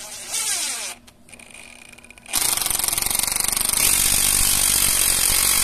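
DeWalt XR cordless impact driver driving a long Phillips wood screw into dry old hardwood with no pilot hole. It spins up briefly, pauses, then from about two and a half seconds in hammers loudly and steadily as the impact mechanism works against the hard wood.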